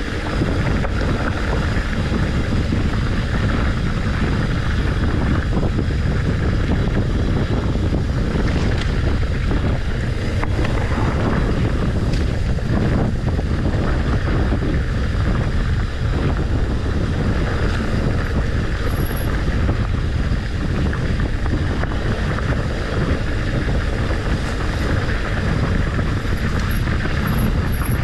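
Wind noise on the microphone while riding a mountain bike along a dirt single-track, over the rumble of the tyres on the trail.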